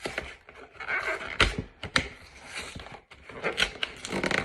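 Handling sounds from a cardboard Pokémon trading-card collection box: a scatter of sharp taps and clicks with short rustles in between as it is turned over and readied for opening.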